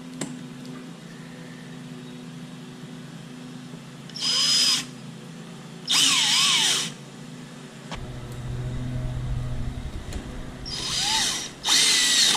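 Power drill running in four short bursts, each a second or less, the motor's whine rising and falling as it spins up and slows. A low hum runs for a couple of seconds midway.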